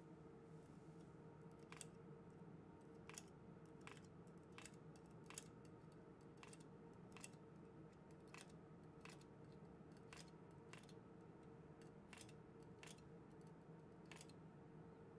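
Faint, irregular metal clicks, roughly one every half second to a second, as latch needles are moved by hand in the cylinder slots of a circular sock knitting machine during short-row heel work.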